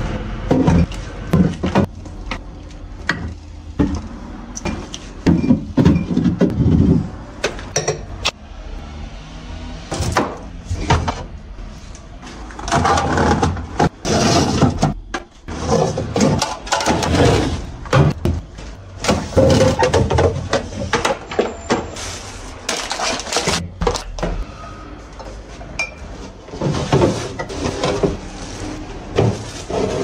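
Glass jars, bottles and clear plastic refrigerator door bins and shelves being handled as a fridge is emptied: repeated knocks and clinks of glass and plastic, with rustling and scraping between them.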